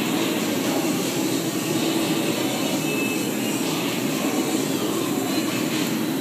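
Steady mechanical drone and rush of air, with no change in level.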